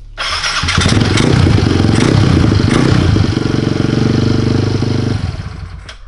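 Kawasaki KLX110 pit bike's big-bore single-cylinder four-stroke engine, through an FMF 4.1 exhaust, running loud and being revved unevenly, then held at a steady higher speed before the revs drop away about five seconds in. It is being run after a new intake gasket, and the owner thinks it still has a little bit of an intake air leak.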